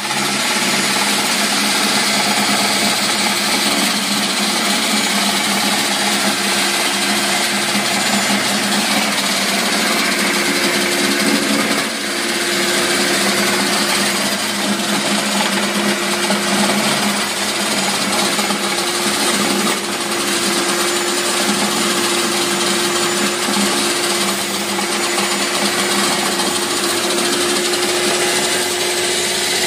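Electric vegetable slicing machine running steadily, its motor and blades cutting watermelon rinds fed into the hopper into thin slices.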